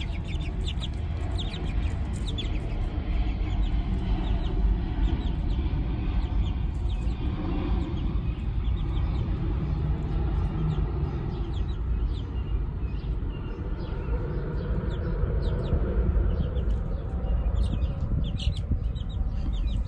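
Young chickens peeping and clucking, with many short high peeps scattered throughout, over a steady low rumble.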